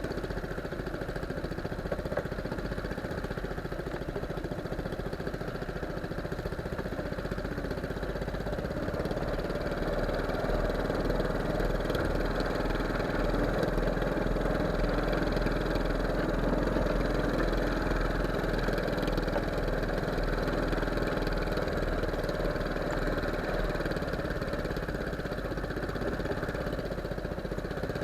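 Small fishing boat's engine running steadily, getting a little louder about ten seconds in.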